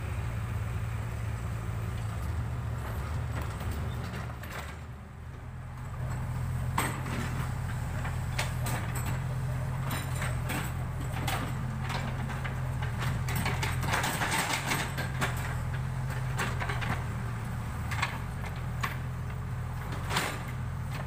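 Backhoe loader's diesel engine running under load: it eases off briefly about five seconds in, then comes back up and holds steady, with repeated sharp clanks and knocks from the working machine as it levels earth.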